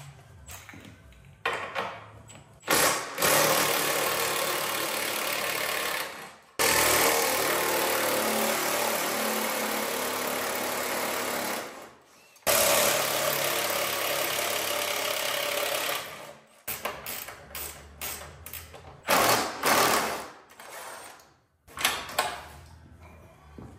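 Cordless power driver running in three long spells of several seconds each, then in a string of short bursts near the end, as it runs bolts out of a garden tractor's fender and seat pan.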